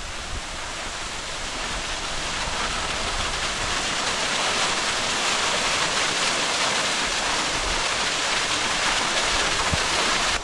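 Waterfall pouring, a steady rush of water that grows louder over the first few seconds and cuts off suddenly at the end.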